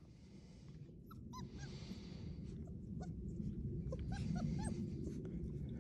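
Labrador retriever puppies giving short high whimpers and yips, a few in quick succession about a second in, then more through the second half, over a low steady rumble.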